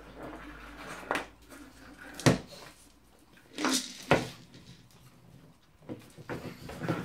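A pug's treat ball being nosed about, knocking against the wooden kitchen cupboards and the tiled floor. The knocks come irregularly, several times, the loudest a little past two seconds in.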